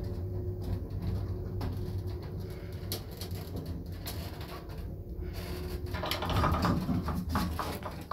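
Elszyk lift car descending: a steady low hum of the lift running, heard inside the car. About six seconds in there is a louder, rougher stretch as the car nears the ground floor.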